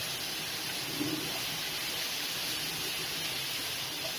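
Shredded vegetables stir-frying in oil in a wok, a steady sizzling hiss as a wooden spatula turns them over.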